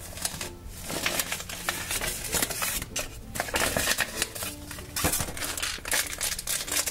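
Plastic blind-bag wrapping being crinkled and torn open, then a small clear plastic bag rustling in the fingers: many quick, irregular crackles.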